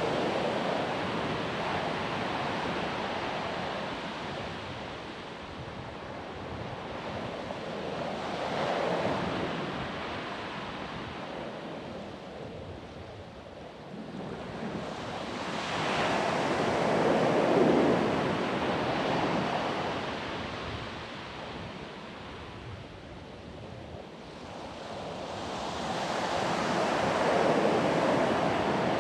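Ocean surf breaking on a beach, swelling and fading in slow surges about every eight to nine seconds.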